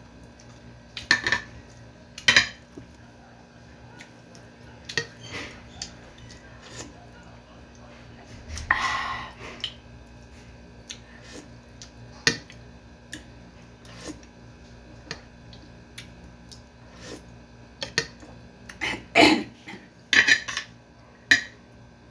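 Metal spoon clinking and scraping against a plate of rice in scattered knocks, with a longer scrape about nine seconds in and a busier run of clinks near the end.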